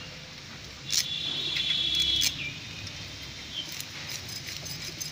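Small fish being scaled and cut against a boti, a curved blade fixed upright: light clicks and scrapes of flesh and scales on the blade. About a second in, a high, buzzy chirping lasts a little over a second and is the loudest sound.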